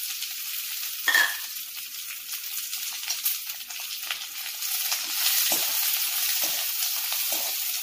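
Chopped onions sizzling in hot oil in a heavy iron kadai, a steady hiss. A steel spoon stirs and scrapes through them in the second half, with one sharp metallic clink about a second in.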